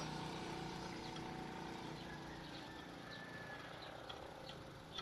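Faint steady background noise with a few light ticks from a thread tap being turned by hand into a hole.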